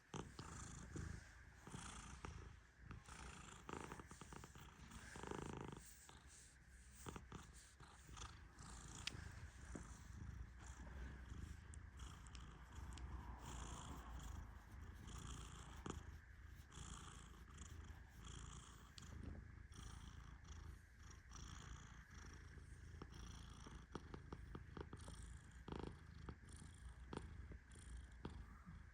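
Persian cat purring quietly in a steady low rumble, with scattered faint crackles throughout.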